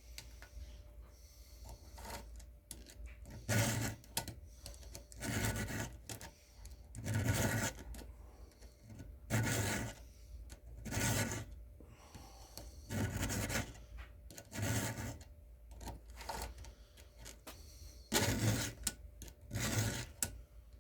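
Round chainsaw file rasping across the chain's cutter teeth in short, even strokes, about one every second and a half, as a dull chain is sharpened by hand. The strokes begin a few seconds in, after some faint ticking.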